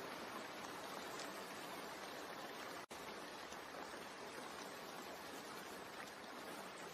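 Steady rain: an even hiss with faint scattered drop ticks. It cuts out for an instant about three seconds in.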